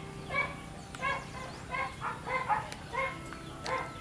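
An animal calling in a steady series of short, pitched calls, about one every two-thirds of a second.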